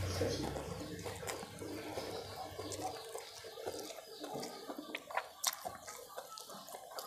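Close-up eating sounds: slurping instant noodles and wet chewing, with scattered sharp mouth clicks and smacks. A low hum fades out within the first second.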